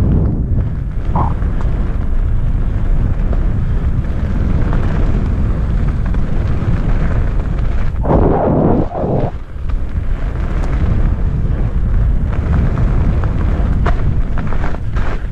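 Heavy wind buffeting on a helmet-mounted camera's microphone, mixed with the rumble of mountainboard wheels rolling over a gravel trail. A louder rush of noise comes about eight seconds in, during a leaning turn, and a few sharp clicks come near the end.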